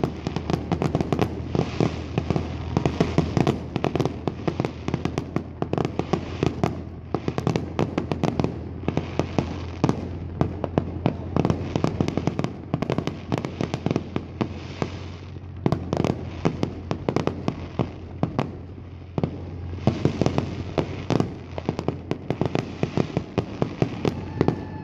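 Aerial fireworks display: a rapid, continuous barrage of shell bursts and crackling, many bangs a second, with only brief thinning now and then.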